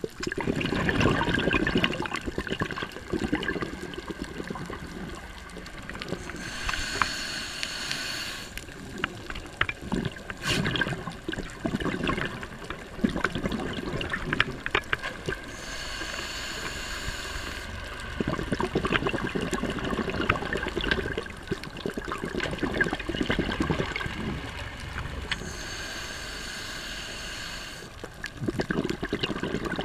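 Scuba diver breathing through a regulator, heard underwater: a hiss on each inhale, then several seconds of rushing, gurgling exhaled bubbles, in a slow cycle of about three breaths.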